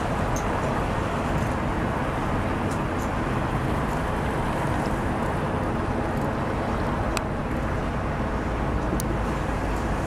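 Steady rumble of distant road traffic, with two faint sharp ticks late on.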